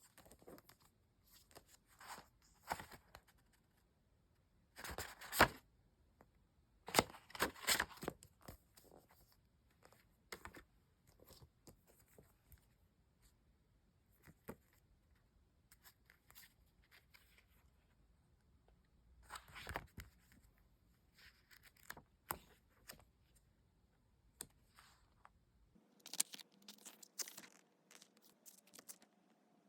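Packaging being torn open and handled, in scattered bursts of tearing and rustling. The loudest tears come about five and seven seconds in.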